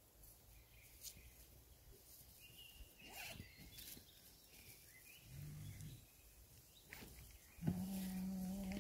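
Small birds chirping faintly, with a few light clicks. Near the end a louder, steady low-pitched call or hum holds for about a second.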